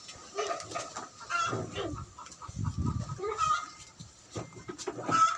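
Chickens clucking, with a few faint clicks from stainless steel toenail nippers.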